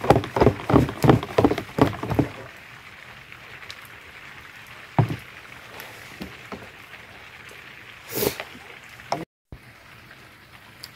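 A traditional hand-churn: a wooden stick spun back and forth by a rope in a plastic jar of milky liquid, splashing in a quick rhythm of about three strokes a second. The churning stops about two seconds in, and a few soft knocks follow.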